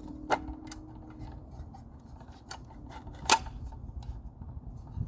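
Scattered clicks and light knocks of handling as the circular saw and fiber cement board are set up for the next cut, the sharpest click about three seconds in. The saw is not yet running.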